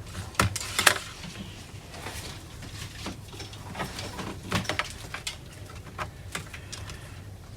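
Irregular clicks and taps of laptop parts being handled and fitted during reassembly, the loudest cluster about a second in, over a steady low hum.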